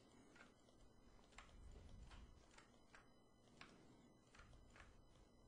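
Near silence, with faint, irregular computer mouse clicks, about one every half second, as anchor points are placed.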